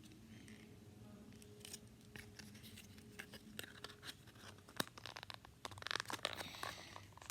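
Slime being handled and pressed back into its container: faint scattered sticky clicks and crackles, busier near the end.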